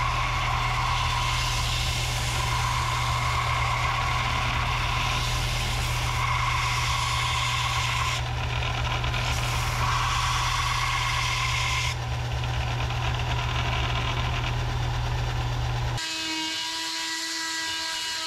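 Bench-top belt sander running steadily while a thin wooden strip is held against the belt to ease its edges, the sound shifting about eight and twelve seconds in. About sixteen seconds in it gives way to a different handheld power tool with a steady, higher whine.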